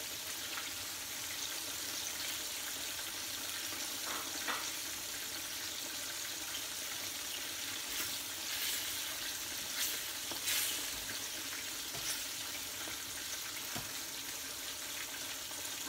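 Oil sizzling steadily in two frying pans: onion rings sautéing with soy sauce and kalamansi juice, and a boneless bangus (milkfish) deep-frying. A few light clicks of tongs against the pans are heard.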